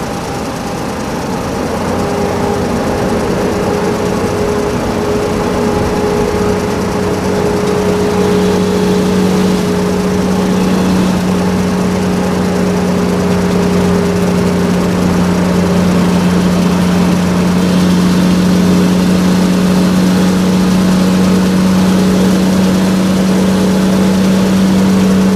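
Small electric motors and gearboxes of RC toy construction vehicles running continuously with a steady hum, growing somewhat louder over the first few seconds.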